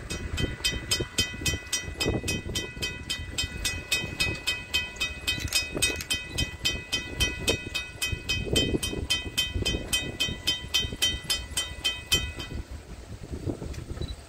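Railroad grade-crossing bell ringing in rapid, evenly spaced strikes, about four a second, as a train approaches; it stops about two seconds before the end. Wind gusts rumble on the microphone underneath.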